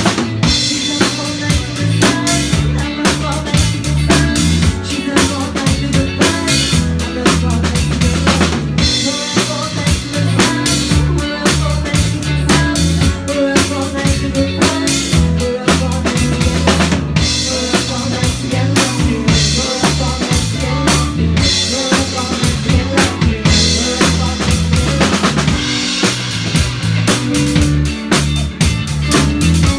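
Live band playing loudly through a small PA, the drum kit to the fore with kick drum, snare and rimshots keeping a steady beat, over electric guitar and bass.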